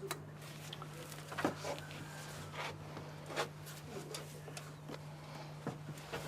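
Faint clicks and short rubbing scrapes of seat belt webbing and fittings being handled, the loudest click about a second and a half in, over a steady low hum.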